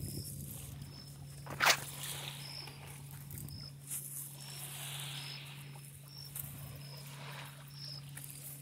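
Insects chirping, short high chirps repeating about every half second to a second over a steady low hum, with a sharp knock about two seconds in and a few softer knocks later.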